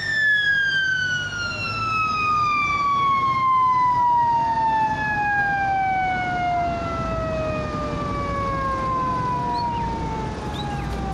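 A siren winding down: one long tone falling slowly and evenly in pitch, over a low rumble.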